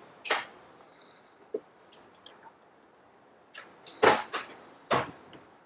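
A handful of short, sharp clicks and knocks of plastic air line and push-in fittings being handled against the steel bench, the loudest about four seconds in.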